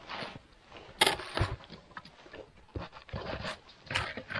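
A few irregular sharp knocks and scrapes, the loudest about a second in, with quieter ones scattered through the rest.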